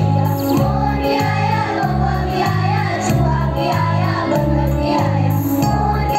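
A children's choir singing with an upbeat backing track that has a steady, repeating bass line.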